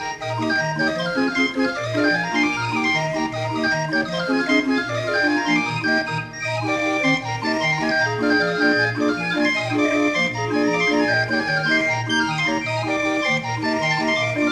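Barrel organ playing a tune: held pipe notes carrying a melody over a regular beat of bass notes and chords.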